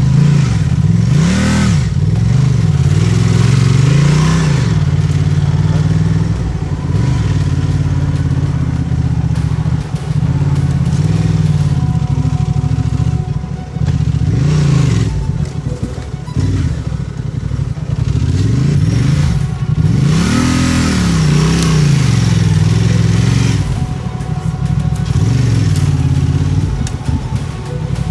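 Adventure motorcycle's parallel-twin engine under way off-road, its pitch climbing and dropping again and again as the throttle is opened and closed and the gears change.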